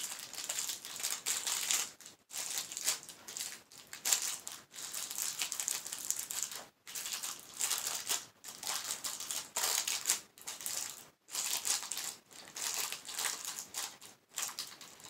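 Crinkly red plastic wrapper of a Gloria candy being handled and pulled open, crackling in irregular stretches with a few short pauses.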